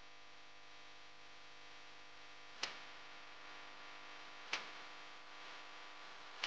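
Faint steady hiss of chicken pieces frying in a wok as they are stirred with a spatula, broken by three sharp clicks about two seconds apart. The hiss grows a little fuller after chopped tomatoes go in.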